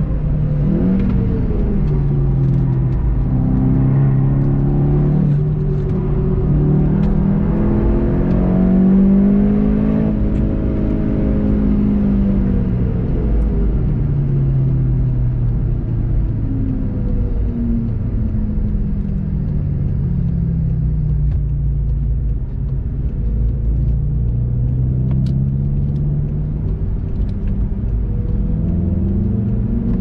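The turbocharged 2.0-litre four-cylinder engine of a VW Golf 7.5 GTI TCR, heard from inside the cabin during a fast track lap. Its note rises and falls repeatedly as the driver accelerates, lifts off, brakes and changes gears.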